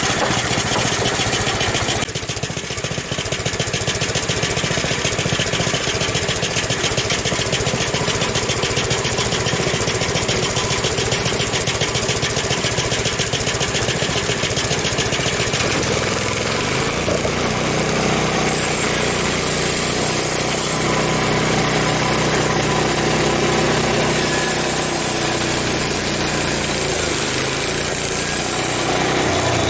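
A Frontier OS23 portable bandsaw sawmill running hard: its gas engine drives the band blade through an ash log. The engine note shifts a little past halfway through.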